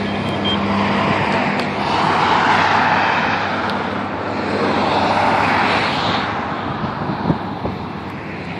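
Road traffic going by, swelling twice as vehicles pass, over a low steady engine hum.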